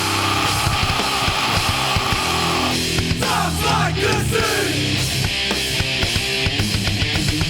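Metalcore band playing an instrumental intro: loud distorted guitars over drums, with sliding notes about three seconds in before the rhythmic riff resumes.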